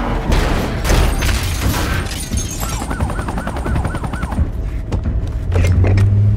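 Movie car-crash sound effects: a run of heavy crashing and metal impacts in the first two seconds, then a police siren wailing in fast waves for about two seconds. Near the end a deep, steady engine drone comes in.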